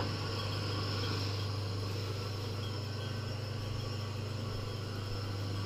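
Homemade Soviet table saw's electric motor running steadily with a low, even hum, turning the belt-driven blade without cutting.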